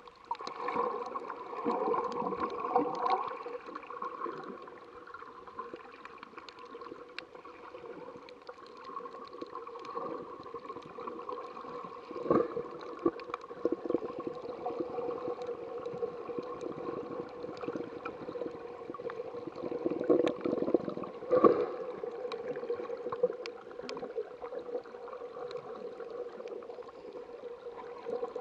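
Water gurgling and sloshing heard underwater by a snorkeler's action camera, a muffled, steady wash with scattered faint clicks and a few sharper knocks, the loudest about twelve and twenty-one seconds in.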